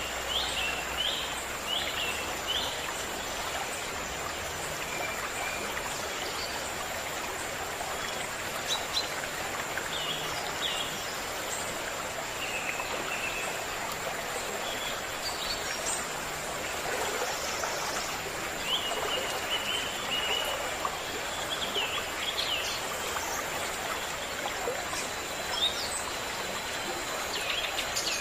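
Steady rush of a stream with small birds chirping in short, scattered calls over it, and a faint steady high-pitched whine behind.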